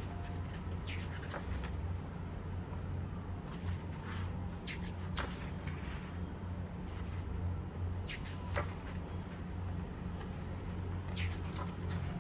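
Hands handling Blu-ray packaging: scattered soft rustles, rubs and small clicks of plastic and paper, over a steady low hum.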